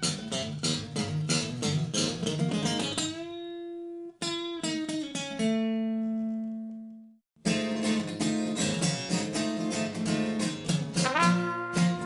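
Acoustic guitar strummed in quick rhythmic strokes, breaking into chords left to ring and fade out, then strumming again about seven and a half seconds in. Near the end a cornet comes in with a note that slides up and holds.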